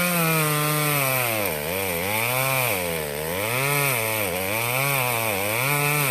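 Two-stroke chainsaw engine revved up and down again and again, its pitch rising and falling in a series of blips with no pause between them.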